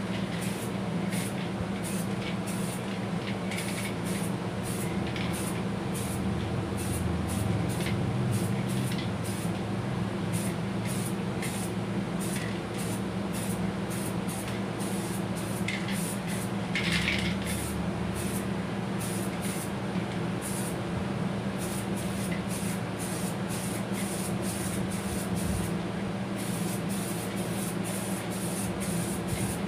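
2K aerosol spray can hissing in short, repeated bursts as clear lacquer is sprayed onto a cast-aluminium intake manifold, over a steady low hum.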